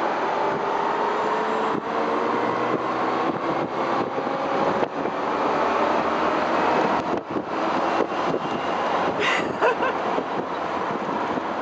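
Electric Porsche Speedster replica under way, its electric drivetrain whining with a pitch that rises slowly as the car picks up speed, over steady road and wind noise.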